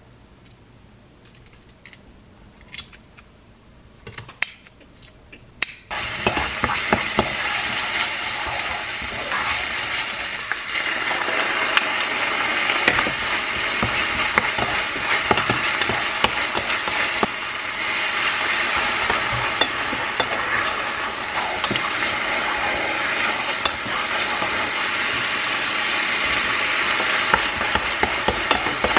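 A few light clicks, then about six seconds in a loud sizzle starts suddenly: onion and garlic frying in olive oil in a pan, with a wooden spoon stirring and scraping through it. The sizzle grows a little louder around ten seconds in, as abalone innards go in over high heat.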